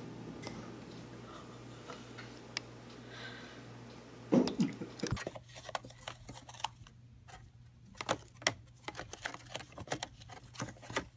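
A hamster moving about in its wire cage makes quick, irregular clicks and scratches, starting about five seconds in. Before that there is only a faint steady background, broken by a single loud knock about four seconds in.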